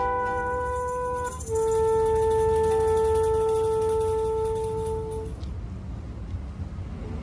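Trumpet playing two long held notes. The second is slightly lower and louder, and it stops about five seconds in.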